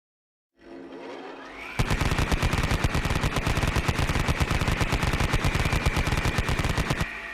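Automatic gun sound effect: a whine rises in pitch for about a second, then very rapid, continuous fire runs for about five seconds over a steady whine. The firing cuts off abruptly near the end and the whine winds down.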